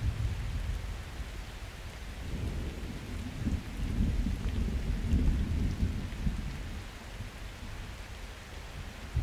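Summer thunderstorm: steady hiss of rain with a low rolling rumble of distant thunder that swells about two seconds in and dies away over the next few seconds.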